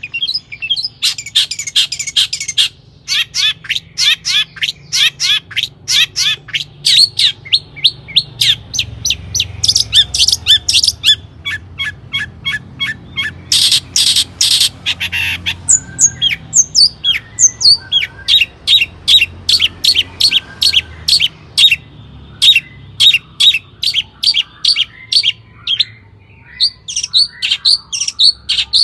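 Long-tailed shrike (cendet) singing a rapid, unbroken run of short, sharp, harsh notes, with a brief pause about three seconds in.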